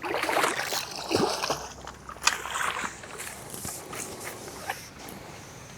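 Water splashing and sloshing close by, loudest in the first three seconds, with a sharp knock a little over two seconds in.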